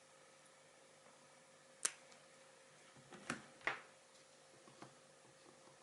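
Quiet room with a faint steady hum. One sharp click about two seconds in, then two softer knocks a little over a second later, like small objects being handled on a desk.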